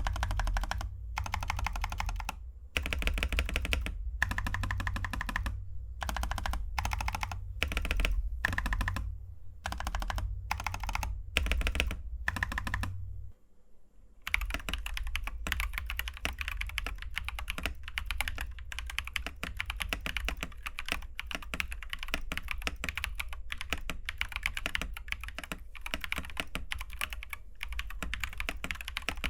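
Typing on a mechanical keyboard fitted with Glorious Panda tactile switches: keystrokes come in short spurts separated by brief gaps, then, after a short pause about halfway through, run on as steady fast typing.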